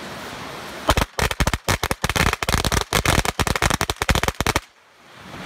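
A string of firecrackers going off in a rapid, irregular run of sharp bangs, starting about a second in and lasting about three and a half seconds before stopping abruptly.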